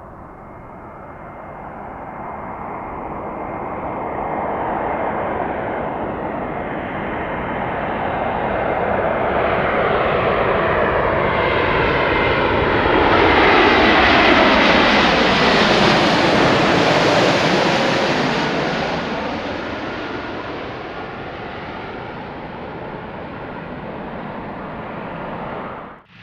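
Airbus A321 jet airliner passing by. Its jet engine noise, with a faint steady whine in it, swells to its loudest about halfway through, the rush sweeping down in pitch as it goes past, then fades.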